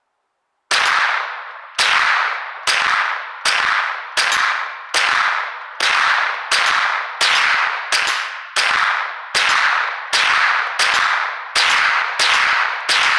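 Semi-automatic gunfire: about seventeen single shots fired in a steady rhythm a little under a second apart, each trailing off in a long echo.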